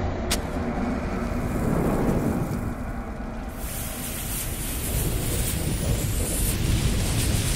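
Intro sound effects of a lit bomb fuse and flames: a steady low rumble under a hissing, crackling burn, with a sharp click just after the start. The hiss turns brighter about three and a half seconds in.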